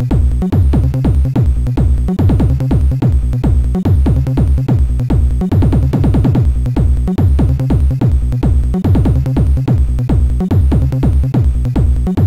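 Fast electronic techno music played from an Amiga tracker module by the intro's music replayer. It has a steady, driving drum-machine beat and bass, with sounds that sweep sharply down in pitch in a regular rhythm.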